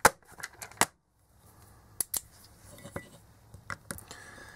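Small hand-tool handling: a loud sharp click as a screwdriver bit is taken from a plastic bit case, then scattered light clicks and taps of a small screwdriver working at screws inside a plastic LED bulb housing.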